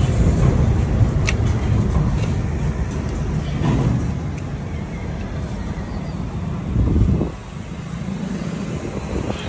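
A motor vehicle engine runs steadily under low traffic noise. There is a sharp metallic click about a second in, and a brief louder swell near the end.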